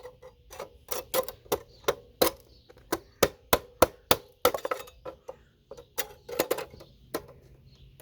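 Hammer strikes knocking plastic RAM slots off a scrap computer motherboard: about twenty sharp, hard knocks in quick, uneven succession, two or three a second.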